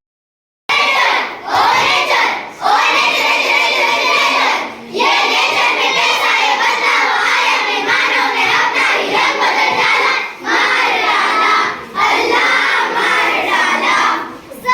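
A group of children chanting together loudly in unison, in phrases broken by short pauses every second or two.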